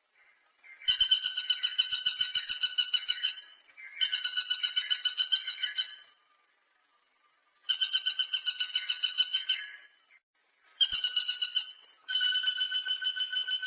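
Woodpecker calling in runs of rapid, evenly repeated high notes, about nine a second, each run lasting a second or two. Five runs follow one another with short pauses between them.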